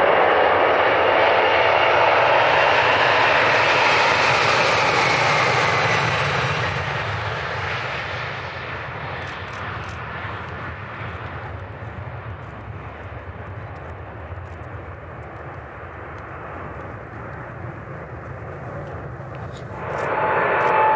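Boeing 747's four jet engines at takeoff thrust, loud at first with a faint falling whine, then fading steadily over several seconds as the aircraft climbs away. Near the end, loud jet engine noise starts again abruptly.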